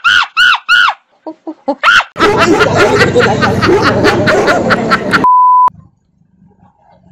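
Edited montage of sound effects: about four quick bouncing cartoon-style pitch sweeps, then about three seconds of loud jumbled noise and voices, cut off by a steady high beep lasting half a second.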